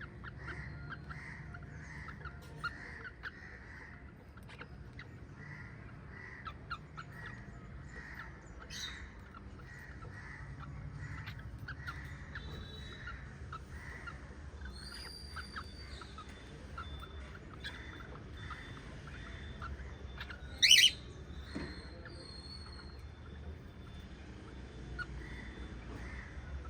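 Small pet parrots chirping: a steady run of short chirps about twice a second, with scattered sharper calls and one loud, shrill call about two-thirds of the way through.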